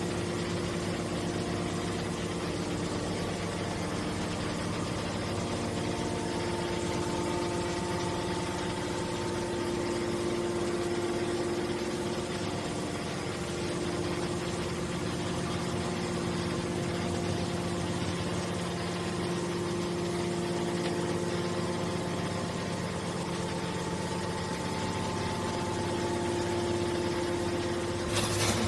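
Scrap metal baler's hydraulic power unit running with a steady hum, with a few short knocks near the end.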